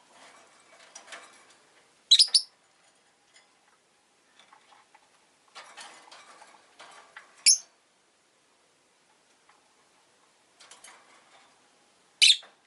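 Rosy-faced lovebird giving three sharp, high chirps about five seconds apart, each preceded by a second or so of faint scratchy rustling and ticking.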